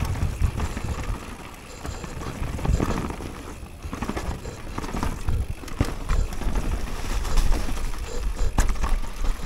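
Downhill mountain bike riding fast over a dirt forest trail: tyres rolling over soil and dry leaves, with a constant low rumble and scattered sharp knocks and rattles from the bike over roots and bumps.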